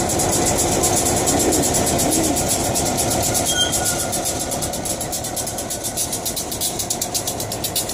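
Diesel locomotive's engine idling with a steady, rapidly pulsing rumble while the locomotive turns slowly on a railway turntable. It fades slightly over the second half.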